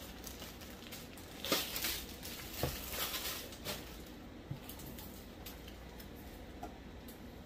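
Comic books in plastic sleeves being handled and shuffled in a stack: a brief rustle of plastic about a second and a half in, then a few light taps and slides.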